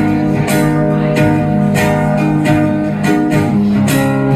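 Acoustic guitar strumming held chords in a steady rhythm, about one strum every two-thirds of a second, between sung lines of a live song.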